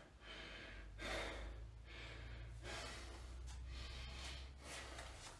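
A man breathing hard, a series of long, audible breaths in and out, over a faint low hum that stops just before the end.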